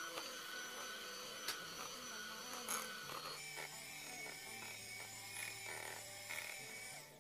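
Electric hand mixer running steadily, its twin beaters whisking runny egg, sugar and oil cake batter in a glass bowl: a continuous motor whine with a few sharp ticks.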